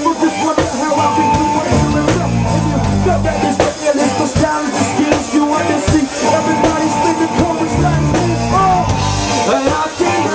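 Loud live hip-hop band music with drums, and heavy bass swells about two seconds in and again near eight seconds.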